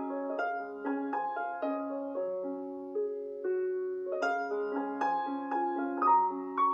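Background piano music: a slow, gentle melody of struck notes that ring on and fade, a new note about every half second.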